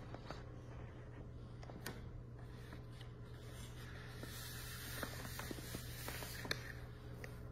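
Faint rustling of a paper sheet being pressed and rubbed flat against skin by hands. There are a few small taps and crinkles, and a hissing rub is strongest from about four to six and a half seconds in, over a low steady room hum.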